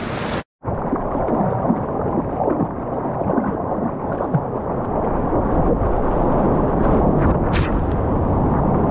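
Water rushing and churning against the surfboard as it catches a small wave: a dull, steady rumble that slowly grows louder, heard close on the GoPro mounted on the board. The sound cuts out completely for a moment about half a second in.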